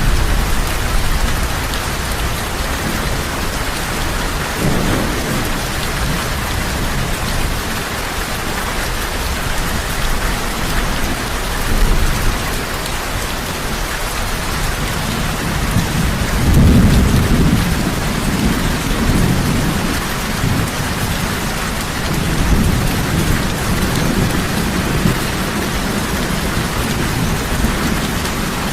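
Heavy rain falling steadily, with low rolls of thunder rumbling beneath it, the strongest swelling a little past halfway through.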